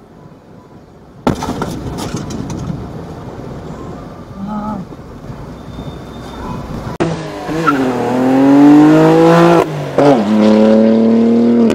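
A sudden loud bang heard inside a car's cabin, followed by several seconds of rumbling noise. Then a red sports sedan's engine revs hard under acceleration, its pitch rising and breaking twice near the end at gear changes.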